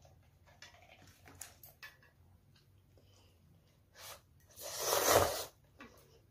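A child slurping instant ramen noodles off chopsticks: one loud slurp lasting about a second, a little past the middle, after a few faint clicks.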